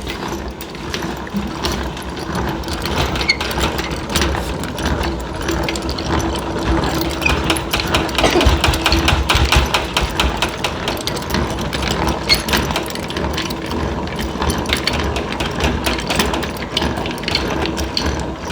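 Honey extractor spinning honey frames, its gear drive clattering in a fast, steady rhythm with a low hum underneath.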